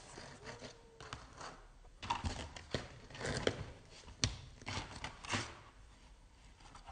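A kitten's claws scratching and scraping on a cardboard box as it scrambles up the side, an irregular run of scratches that grows busier about two seconds in.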